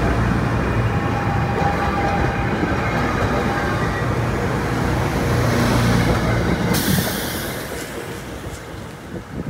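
Passenger train rolling past close by, a heavy, steady low rumble of wheels on rail. About seven seconds in there is a brief rush of hiss as the last car passes, and the rumble then fades as the train moves away.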